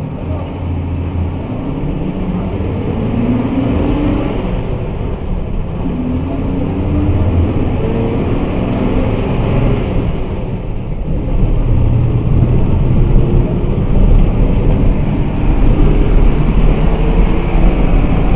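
Cabin sound of a Mercedes-Benz OF1214 bus's diesel engine pulling under load, growing steadily louder as the bus accelerates, with a brief dip about ten seconds in before it pulls harder.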